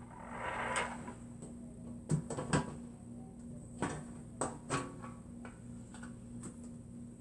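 Hands working on an opened PC case: a brief rustle, then a handful of light clicks and knocks, over a faint steady hum.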